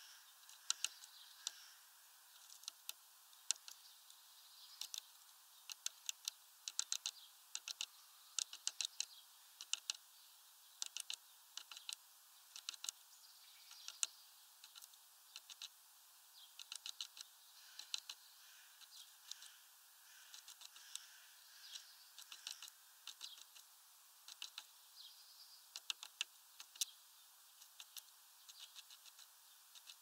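Small bird pecking with its beak at food on a wooden perch. The sharp taps come in quick bursts of two to five, about one burst a second.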